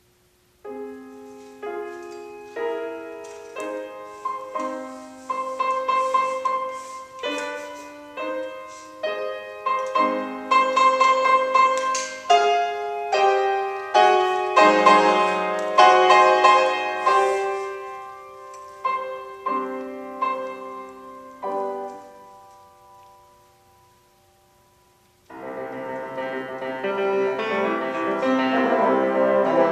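Grand piano playing the orchestral part alone in a classical concerto, a run of struck, decaying chords and melody that dies away near the end. About 25 s in, the four French horns and the piano come in together, fuller and louder.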